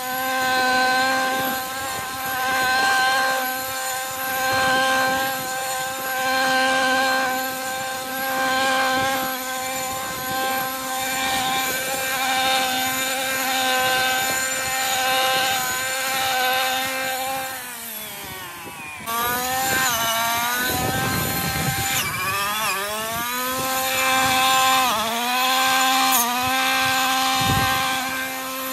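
Husqvarna 128R brushcutter's small two-stroke engine running at high revs, its level rising and falling in a regular rhythm about every second and a half. About two-thirds through the engine winds down, then is revved up and down several times in quick blips before settling back to full speed near the end.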